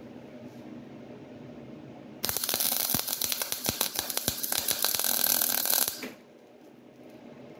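A metal mechanism rattling and clicking for about four seconds, starting and stopping abruptly, over a faint steady hum.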